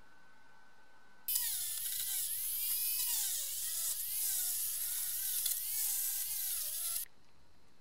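Handheld rotary tool with a steel wire brush bit scrubbing rust off a small round metal lamp part. It starts about a second in with a high whine over a scratchy hiss, the pitch dipping each time the bit is pressed into the metal, and cuts off near the end.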